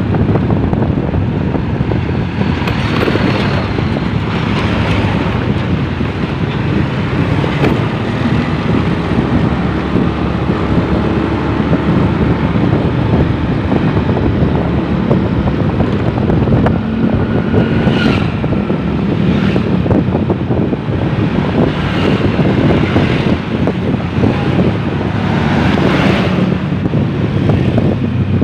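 Wind rushing over the microphone of a moving motorcycle, with the engine and road noise running steadily beneath it.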